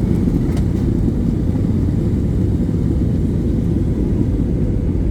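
Steady low rumble of airliner cabin noise, engine and airflow heard from inside the passenger cabin.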